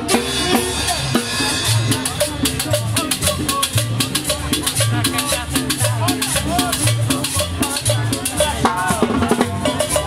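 Live tropical dance band playing an upbeat number: saxophones over conga drums, with a steady beat and a bass line about twice a second underneath. Crowd voices are mixed in.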